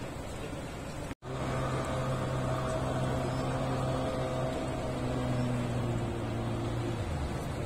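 Yamaha outboard motor on an inflatable boat running at speed with a steady engine drone over the rush of the river. The sound cuts out for an instant about a second in, and the engine note drops near the end.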